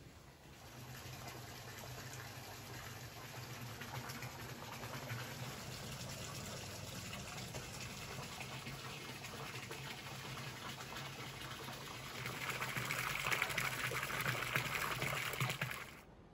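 Steady rush of running water with a low hum under it, growing louder a few seconds before it cuts off.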